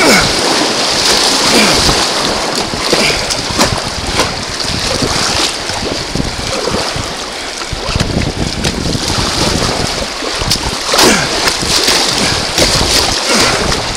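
River rapids rushing and splashing around a kayak as it runs through, with repeated slaps of water and paddle strokes, louder around two-thirds of the way in, and wind buffeting the microphone.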